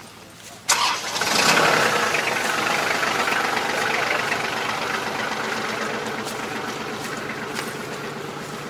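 A tractor engine starting abruptly about a second in, then running steadily as its level slowly eases off.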